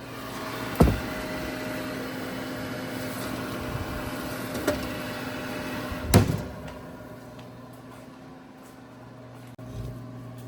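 A running kitchen appliance hums and whirs steadily, with three sharp knocks or clicks, the loudest about six seconds in. The whir eases off just after that.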